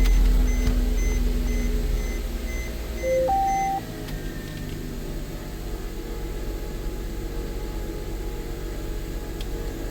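Mercedes-Benz E350's V6 engine just after starting, its level dropping over the first few seconds as it settles into a steady idle. A short two-tone electronic beep, a lower tone then a higher one, sounds about three seconds in.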